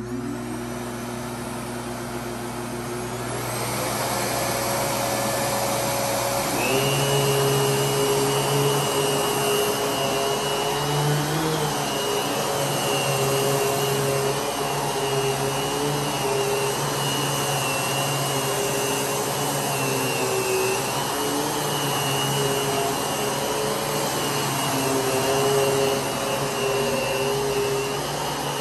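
Kenmore BC4027 canister vacuum cleaner running steadily. The sound grows fuller a few seconds in, and a higher whine joins about seven seconds in, its pitch wavering slightly.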